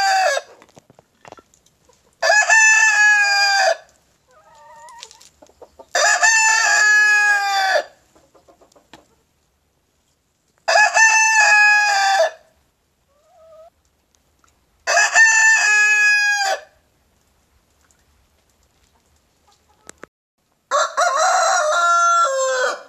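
White Leghorn rooster crowing repeatedly, about one long crow every four seconds, with the end of a crow heard as it begins. Near the end comes a crow with a lower, different pattern from a second, red-and-white rooster.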